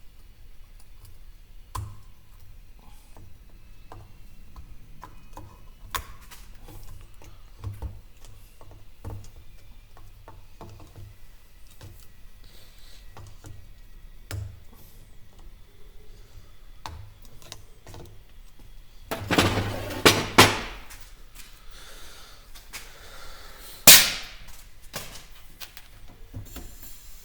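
Scattered small clicks and knocks of tools and metal parts during work on a KamAZ truck's air dryer. About two-thirds of the way through there is a loud rush of noise lasting about two seconds, and a few seconds later one short, sharp burst, the loudest sound here.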